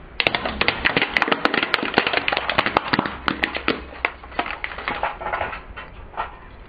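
Plastic toy microphone cracking and splintering under a car tyre: a dense run of sharp cracks and snaps starting just after the start, thinning out over the last couple of seconds.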